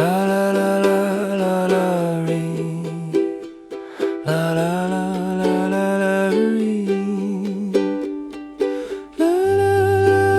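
Instrumental music: ukulele with a melody of long held notes over it, in three phrases. A deeper bass note comes in near the end.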